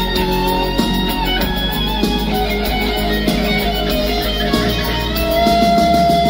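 Live band playing an instrumental passage, with guitar over a steady beat; a long held high note comes in near the end.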